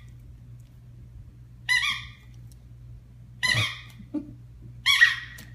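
Pit bull-type dog giving three short, high-pitched whines, about a second and a half apart, over a low steady hum.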